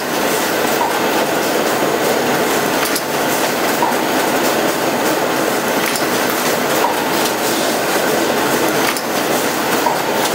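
HM-ZD6418 automatic rigid box making machine running: a steady, dense mechanical clatter with many small ticks from its feeding and conveyor units, and a faint short tone every few seconds.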